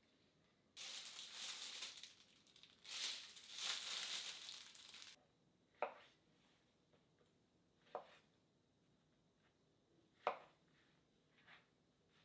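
About four seconds of crinkling and tearing noise while mushrooms are handled. Then a knife cuts into shiitake mushrooms on a cutting board: four crisp single cuts about two seconds apart, each a short tap of the blade on the board.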